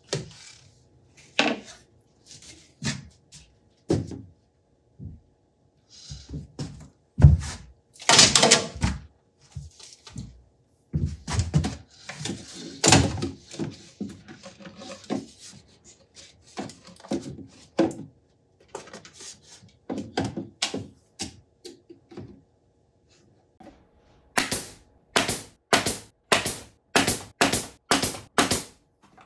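Irregular wooden knocks and thunks as glued plywood parts are handled and set on a workbench, then, starting about five seconds before the end, a quick run of about ten sharp shots from a pneumatic nail gun fastening the glued plywood.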